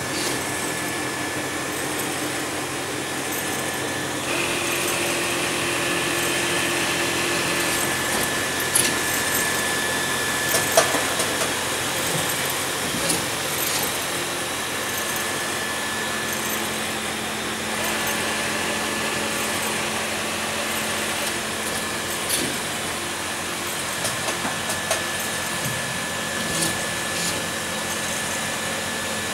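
Arburg injection moulding machine running: a steady mechanical hum and whine whose tone changes every few seconds, with scattered sharp clicks and knocks.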